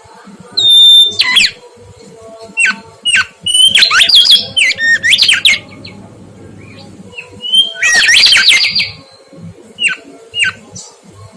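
Mangrove whistler singing: loud, clear whistled notes that sweep sharply up and down, massed into three fast bursts of song with single notes between them.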